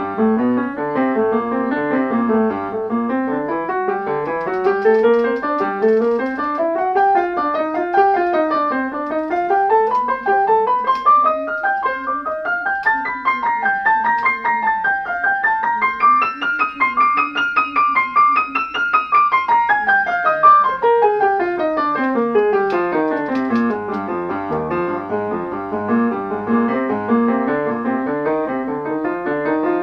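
Background piano music: quick runs of notes that climb to a high point a little past the middle and then fall back down.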